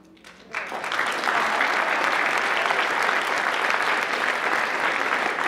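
A large audience applauding: a few scattered claps, then the whole crowd joins in about half a second in and keeps clapping steadily.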